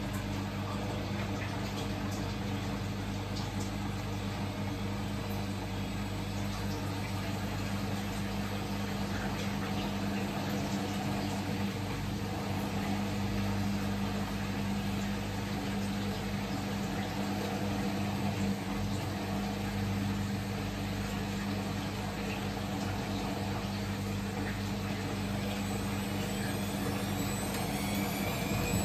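Siemens Siwamat XS 1060 front-loading washing machine running with its drum turning a load of wet laundry: a steady low hum. In the last few seconds the motor speeds up with a rising whine as the drum goes into a spin.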